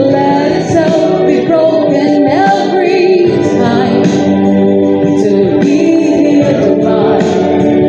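A woman singing a gospel song into a microphone, with a choir singing behind her.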